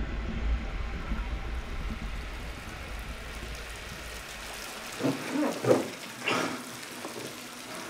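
Bathtub faucet running, a steady stream of water pouring into a filling tub. Near the end a few louder short sounds come over it.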